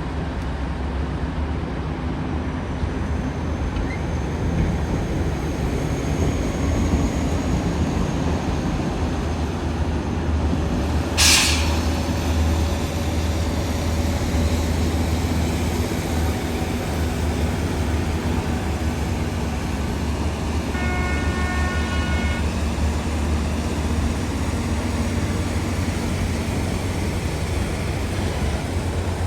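Komatsu D275AX bulldozer's six-cylinder diesel engine running steadily under load with a deep low rumble. A short sharp hiss sounds about eleven seconds in, and a brief steady tone of several pitches about twenty-one seconds in.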